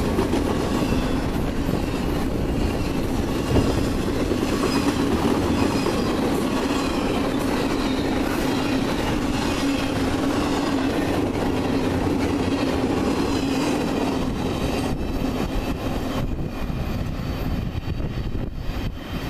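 Double-stack intermodal freight cars rolling past close by, their steel wheels running on the rails with a faint high wavering wheel squeal. The sound thins out and drops in the last few seconds as the end of the train passes and moves away.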